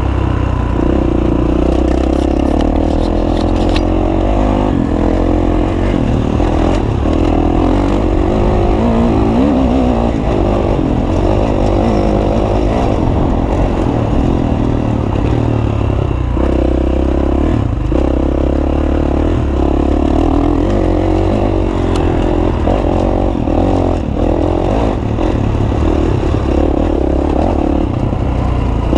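Dirt bike engine running under way, its revs rising and falling as the throttle opens and closes, with clatter from the bike over a rough track.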